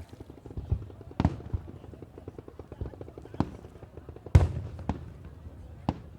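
Aerial fireworks shells bursting in an irregular series of sharp bangs, the loudest about four seconds in, over a fast crackling through the first half.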